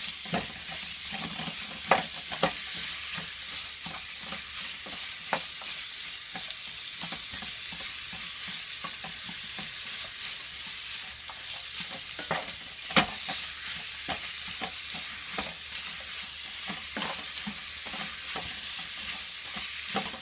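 Chicken pieces sizzling as they fry in a hot pan, being stirred and pulled apart with a cooking utensil that knocks and scrapes against the pan at irregular moments, loudest twice, about 2 and 13 seconds in.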